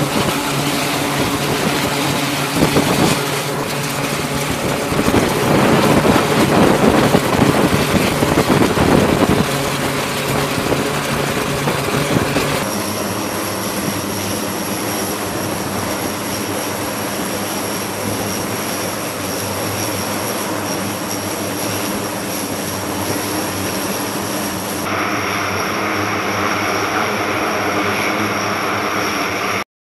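The two turboprop engines of an E-2D Advanced Hawkeye are running with their propellers turning, a loud steady drone made of several held tones. It swells for a few seconds early in the sound, then changes character abruptly partway through and again near the end.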